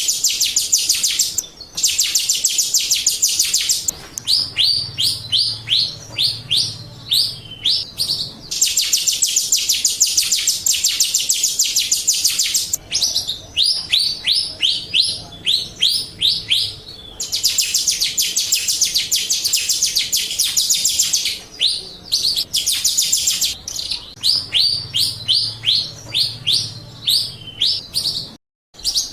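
Jalak rio starling song, a lure recording for caged birds: about four seconds of a dense, very fast high trill, then a run of separate downward-sweeping whistled notes about four a second. The pair repeats over and over like a loop, with a brief dropout near the end.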